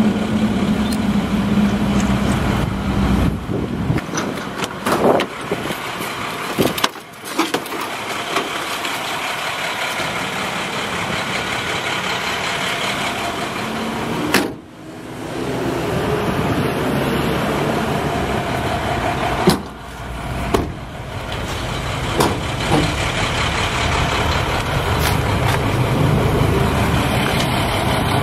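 A motor vehicle's engine running steadily, broken by a few sharp knocks and brief dips in level.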